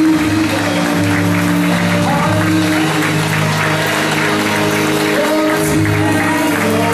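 Live church worship music: held sustained chords over a bass line that shifts to a new note every second or two, with the congregation applauding over it.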